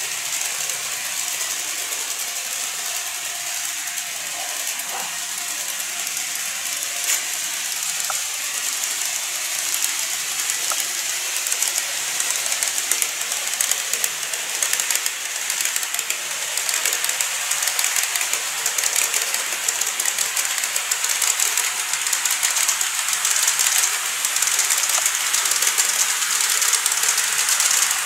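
An N-scale KATO model of a JR Kyushu 415 series electric train running on layout track: a steady high-pitched hiss and rattle of the wheels on the rails and the running motor. It grows louder in the second half as the train draws near, with a couple of faint clicks about seven and eight seconds in.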